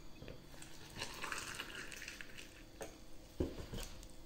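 Oat milk poured from a carton into a mug of puffed spelt cereal, a hiss of liquid filling the mug, followed by a single knock as the carton is set down on the table.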